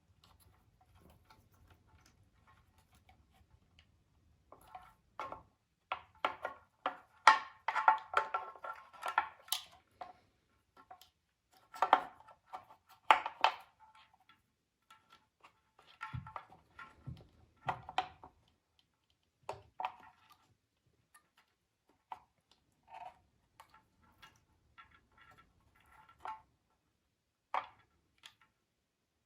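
Irregular clinks, clicks and knocks of small hard parts and tools being handled. The busiest run comes from about five to ten seconds in, with further clusters later.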